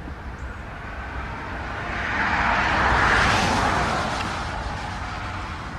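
Boeing 777 jet airliner passing close by, its engine noise swelling to a peak about three seconds in and then fading away.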